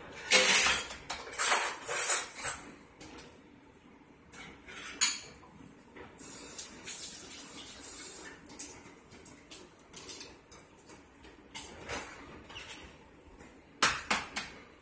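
Raw eggs being cracked on the rim of a large glass mixing bowl and broken open into it: sharp clinks and shell cracks, thickest in the first couple of seconds, then scattered knocks and handling noise.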